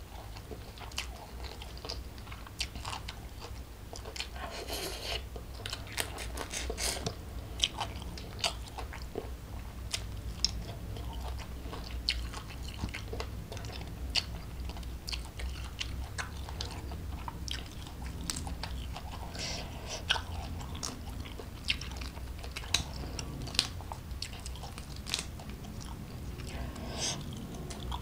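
Close-miked eating of jumbo shrimp in chilli sambal: steady chewing and crunching, with many sharp wet mouth clicks.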